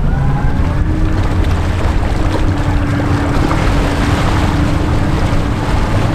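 Formula 290 bowrider's twin Ilmor 5.3 L V8 engines running steadily at slow speed, a low drone with a steady hum over it, mixed with water wash and wind on the microphone.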